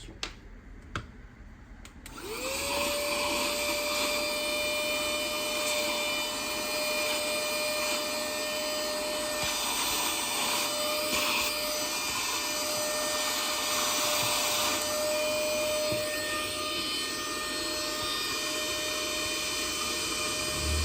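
A small electric cleaning tool's motor switching on about two seconds in, whining up to speed in a fraction of a second, then running steadily with a rush of air while it cleans dust from a dirty laptop cooling fan.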